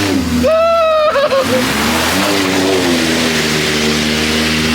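ATV engine running under throttle while riding. Its pitch jumps up briefly about half a second in, then settles lower and changes with the throttle, under a steady rush of wind on the microphone.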